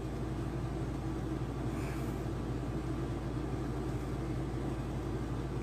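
Steady low hum with a faint hiss, unchanging throughout: background room noise.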